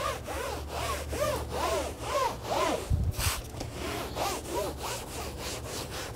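Microfiber interior scrub mitt scrubbed back and forth over a plastic interior door panel wet with cleaner: a rhythmic rubbing, about two strokes a second, each stroke with a squeaky rise and fall in pitch. There is one louder swish about halfway through.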